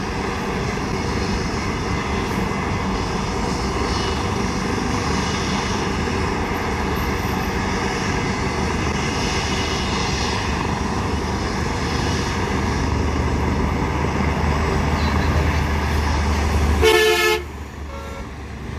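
Landed air ambulance helicopter's turbines running steadily over highway traffic noise. Near the end a vehicle horn gives one short toot, and the noise then drops off suddenly.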